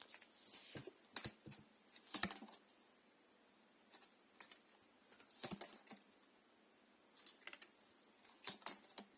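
Faint, scattered clicks and taps of tarot cards being handled and laid down on a table, a few seconds apart, with a small cluster near the end.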